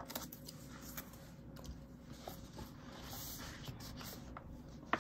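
Faint rustling and a few soft ticks of a colouring book's pages being handled, with one sharper click near the end.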